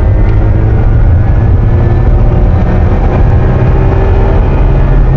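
1970 Subaru 360 truck's small two-cylinder two-stroke engine running steadily as the truck cruises, heard from inside the cab along with road noise. The engine was freshly rebuilt with oversized pistons.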